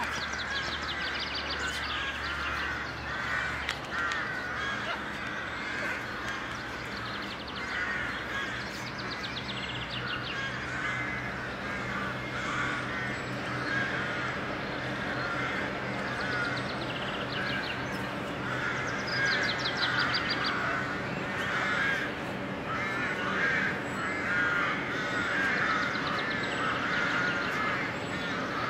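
Many crows cawing with overlapping calls that keep going steadily, broken now and then by brief runs of faster, higher-pitched bird notes.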